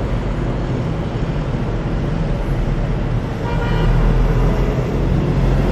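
Steady low hum of nearby road traffic, with a short horn toot about three and a half seconds in.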